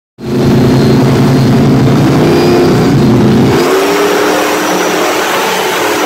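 Flat-bottom boat's engine running loud. Its pitch climbs about three seconds in and then holds higher, while the deep low rumble falls away.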